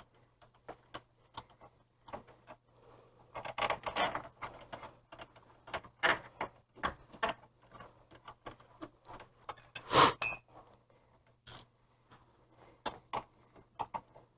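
Metal tools and parts clinking and clanking irregularly while a new wheel hub assembly is fitted, with a louder clank about ten seconds in.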